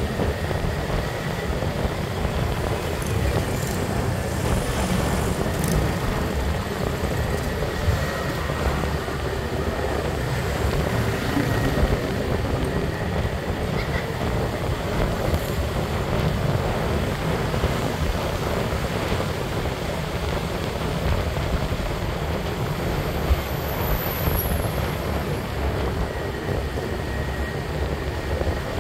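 Motorbike riding at a steady speed: engine and road noise with wind buffeting the microphone in an uneven low rumble.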